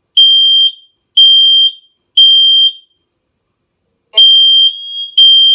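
Nest Protect smoke alarm sounding its evacuation signal, a loud high-pitched beep three times, evenly spaced, then a pause before the next round starts about four seconds in: the alarm for detected smoke. From then on a fainter steady tone at the same pitch fills the gaps between beeps, the second Nest Protect upstairs sounding along with it.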